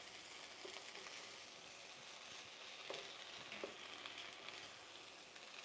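Sliced onions and bell peppers sizzling softly as they sweat in a nonstick pot, stirred with a spoon, with a few light taps of the spoon against the pan.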